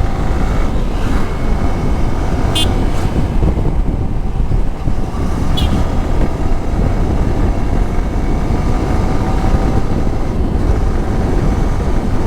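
Motorcycle riding along a road, its engine and the rush of wind on the helmet-mounted mic making a steady low rumble. Two brief high-pitched sounds cut through, about two and a half seconds and five and a half seconds in.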